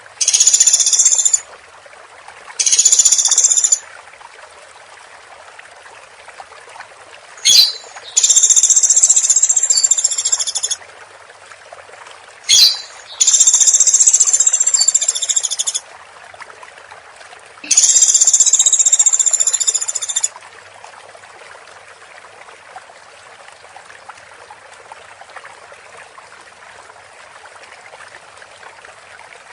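Woodpecker giving fast, high-pitched rattling calls in repeated bursts, most lasting one to three seconds, two of them short and sharp, over a steady background hiss. The calls stop about twenty seconds in.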